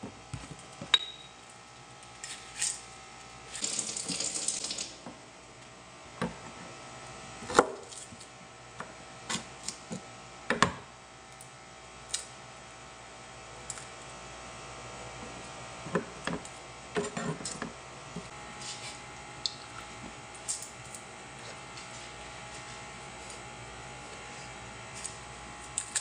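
Kitchen knife and vegetables knocking and tapping on a plastic cutting board in scattered, irregular strikes, with a scraping rustle lasting about a second, about four seconds in, over a faint steady hum. The later, lighter ticks come from garlic cloves being peeled by hand.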